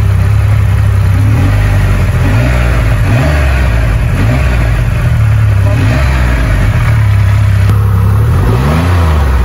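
Triumph Rocket 3 R's 2,458 cc inline three-cylinder engine idling, with several short throttle blips that raise the pitch and let it fall back.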